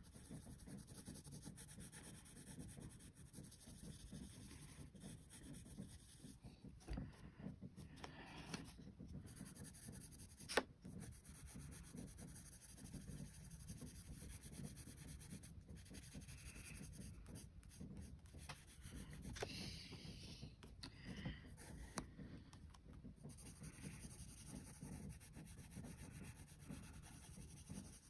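Faint scratching of a graphite pencil shading on sketchbook paper in short, continuous strokes. A single sharp click about ten seconds in.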